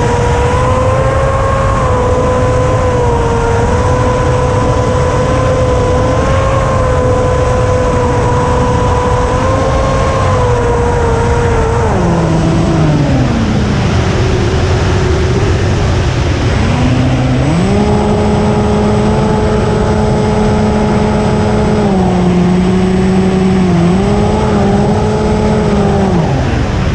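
FPV flying wing's electric motor and propeller whining steadily over heavy wind rush on the onboard camera. About halfway the whine glides sharply down as the throttle comes off, then climbs back a few seconds later to a lower steady pitch that dips and recovers, and drops away again near the end.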